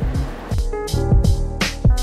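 Background music with a beat: deep drum strokes several times, short high ticks and held chords.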